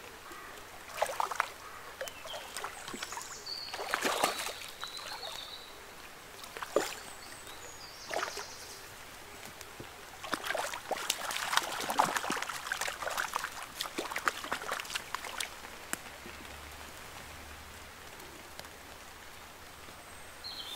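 A hooked brown trout splashing and thrashing at the surface close to the bank in irregular bursts, the longest and busiest stretch from about halfway through, over the steady trickle of a shallow river.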